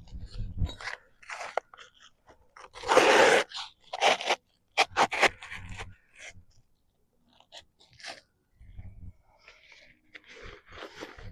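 Asphalt roof shingles being handled on the roof, scraping and crunching in irregular bursts, with a longer scrape about three seconds in and a run of short sharp crunches after it. The shingles are old and brittle and tear as they are lifted.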